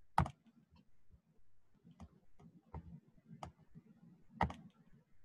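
Computer mouse clicking: a few sharp clicks, the loudest about a quarter second in and another near four and a half seconds, with fainter ticks between.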